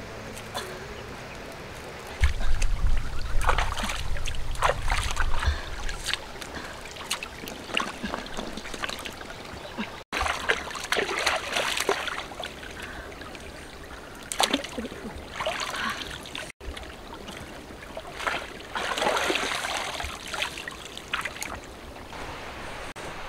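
Water splashing in a shallow stream as hands wash something in it, repeatedly, over the steady trickle of the stream. About two seconds in, a low rumble lasts for some four seconds and is the loudest sound.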